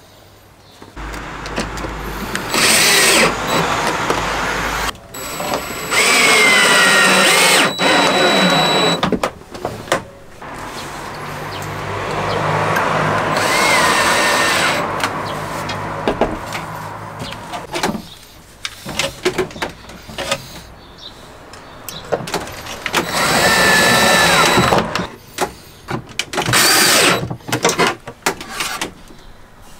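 Cordless drill-driver driving screws to fit concealed cabinet hinges, in about five separate bursts whose whine rises and falls in pitch as the trigger is worked. Clicks and knocks of handling the hinges and doors come between the bursts.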